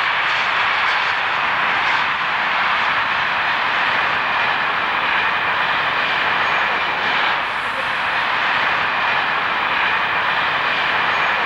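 Express steam locomotive 18 201 running at speed with its train: a loud, steady rushing noise, with no separate exhaust beats.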